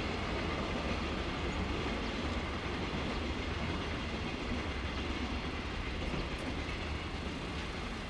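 A freight train of flatcars loaded with long rails passing by: a steady noise of wheels rolling on the track.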